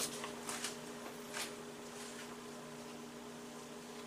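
A steady low hum in a small room, with a few faint rustles of paper being handled in the first second and a half.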